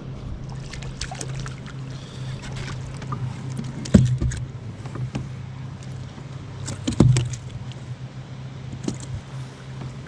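Handling knocks and clicks in a kayak, with two sharp knocks against the hull about four and seven seconds in, over a steady low wind rumble.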